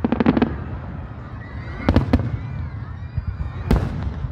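Aerial fireworks shells bursting: a quick cluster of sharp bangs at the start, a couple more around the middle and a loud bang near the end, over a steady low rumble from the display.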